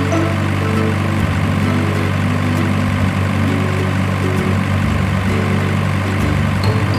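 Background music: a steady low drone under a simple tune of short held notes that step from pitch to pitch.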